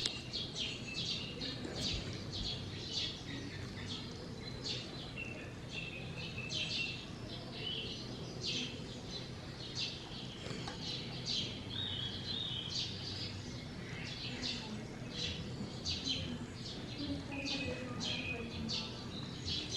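Small birds chirping over and over in short, high notes, roughly two a second, over a steady low hum.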